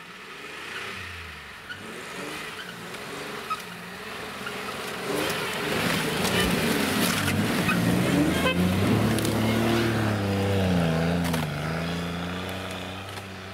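Toyota 4Runner's engine revving as it ploughs through deep snow, its pitch rising and falling under load. It is loudest in the middle and fades near the end as the truck pulls away.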